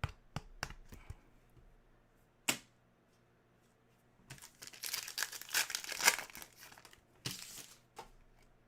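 A trading-card pack wrapper being torn open and crinkled by hand, a long tearing crinkle loudest about six seconds in and a shorter one just after, after a few light clicks of cards being handled.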